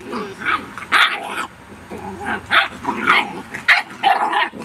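Rhodesian Ridgeback puppies barking and yipping as they play-fight, about two short high barks a second, with lower growling between them.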